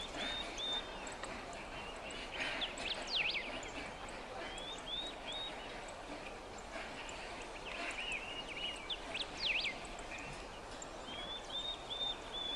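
Wild birds singing: short phrases of high chirps and quick whistled sweeps come back every few seconds over a steady outdoor hiss.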